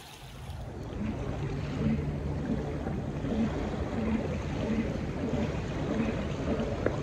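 River water lapping and washing against the rocky shore right beside the microphone, growing louder about a second in and then running on steadily.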